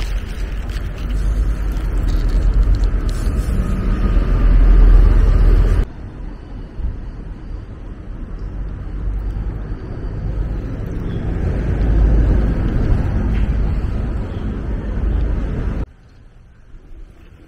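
Wind buffeting the microphone: a loud, low rumble that swells and fades. It breaks off abruptly about six seconds in and again near the end.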